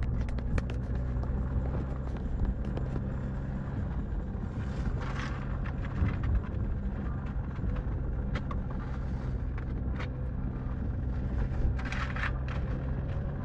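Car engine and tyres drone steadily at low road speed, heard from inside the car, with scattered clicks and two short hissing scrapes about five and twelve seconds in.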